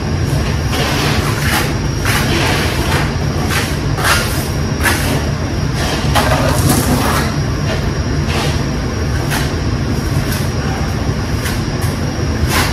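Steel trowel scraping and smoothing wet cement mortar on a wall in short, irregular strokes, over a steady low droning hum.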